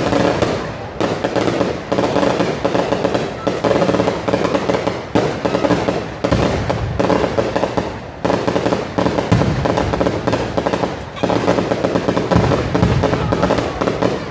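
A long string of firecrackers hanging from a hot-air balloon going off in a rapid, continuous crackle of bangs, easing off briefly a few times before carrying on.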